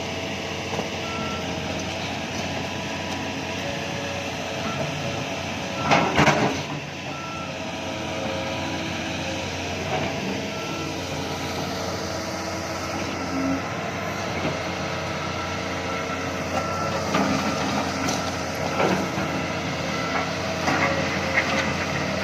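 Heavy diesel machinery running steadily while a dead excavator is pulled along, with a backup alarm giving short beeps on and off. A loud knock comes about six seconds in.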